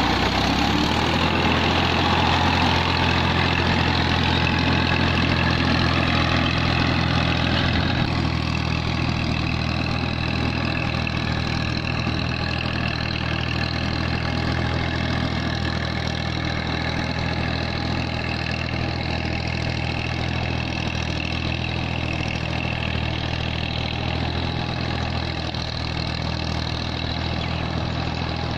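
Massey Ferguson 240 tractor's three-cylinder diesel engine running steadily as it pulls a tine cultivator through flooded paddy mud. Its tone shifts slightly about eight seconds in, and it runs a little quieter after that.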